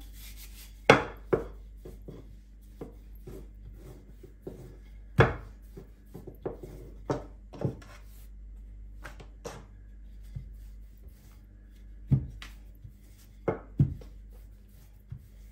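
Wooden rolling pin rolling out pastry dough on a stone worktop, with scattered sharp knocks of wood on stone as the pin is worked, set down and picked up.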